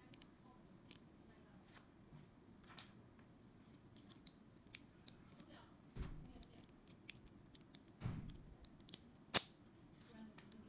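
Small plastic building bricks clicking and snapping together under the fingers: a scatter of sharp clicks that grows busier about four seconds in, with two dull bumps of handling and the loudest snap near the end.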